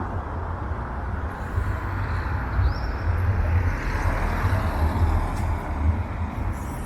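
Road traffic on a town street: a steady rumble of vehicle engines and tyre noise, with a short high squeak about two and a half seconds in.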